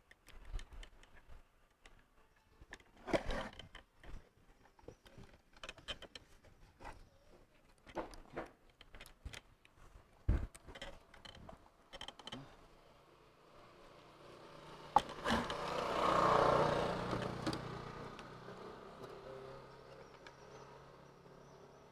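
Scattered light clicks and rustles of enamelled copper winding wire being handled and worked into the slots of a three-phase motor stator. In the second half a motor vehicle passes, its engine sound swelling to the loudest point and fading away slowly.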